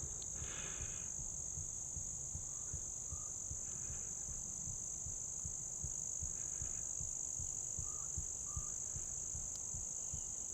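A steady, high-pitched chorus of insects in an open field, unbroken and unchanging, over a low rumble of wind on the microphone. A few faint short chirps sound now and then.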